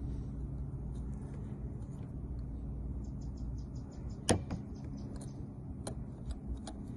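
Small metallic clicks and ticks of a Lishi pick working the wafers of a car door lock: a quick run of faint ticks about three seconds in, then a sharper click a little after four seconds and another near six seconds, over a steady low hum.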